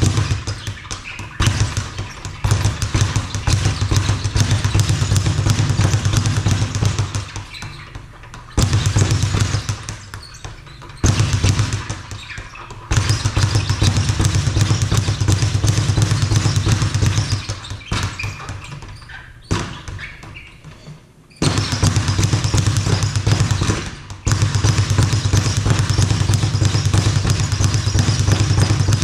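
Speed bag being hit in a fast, steady rattle against its rebound board, in runs of several seconds with short pauses between them.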